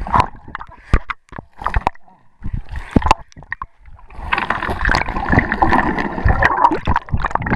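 River water heard from a submerged camera: scattered muffled knocks and bumps, then from about four seconds in a dense, continuous churning rush of bubbling water.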